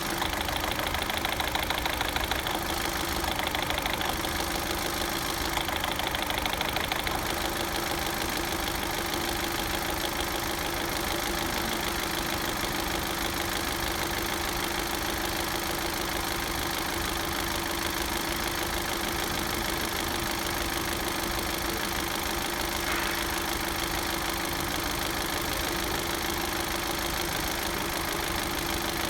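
Engine idling with a steady, rapid knocking, which is taken to be a gear knocking. A steady tone joins in about four seconds in.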